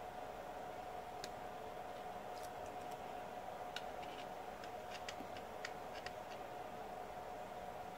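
Fingernails picking at the backing liner of double-sided tape on a metal mount plate: a scatter of faint, sharp clicks, most of them in the middle, over a steady background hum.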